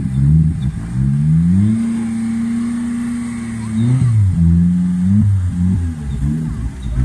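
Off-road 4x4's engine revving hard under load on a steep muddy climb. The revs surge and drop, are held high and steady for about two seconds in the middle, then fall and rise again in shorter blips near the end.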